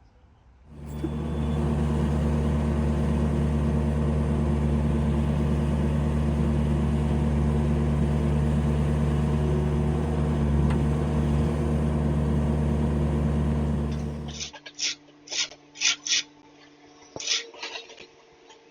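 A large engine running steadily at a constant speed, typical of machinery on a concrete slab pour; it starts abruptly about a second in and cuts off about fourteen seconds in. A run of short, high-pitched chirps follows near the end.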